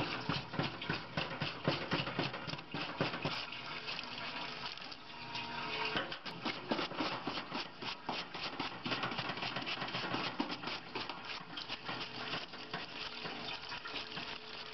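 Hose-fed parts-washer brush scrubbing an aluminum air preheater in a sink of cleaning fluid: fluid running and splashing, with rapid, irregular scratchy bristle strokes and small knocks of metal.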